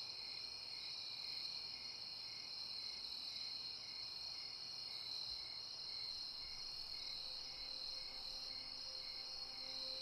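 Crickets chirping in a steady night chorus: a continuous high trill with a fainter chirp repeating a few times a second.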